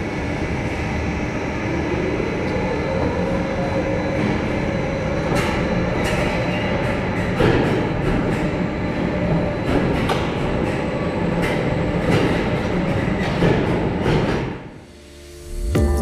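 Intamin roller coaster train rolling slowly through the station, a steady mechanical rumble with scattered clunks and a tone that rises about two seconds in and then holds. The rumble drops away shortly before the end.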